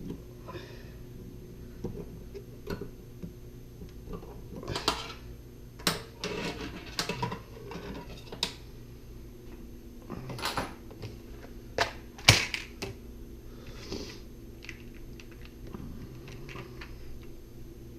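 Irregular clicks, taps and short scrapes as the parts of a single-handle Delta kitchen faucet are handled and worked during a rebuild. The sharpest click comes about twelve seconds in, over a steady low hum.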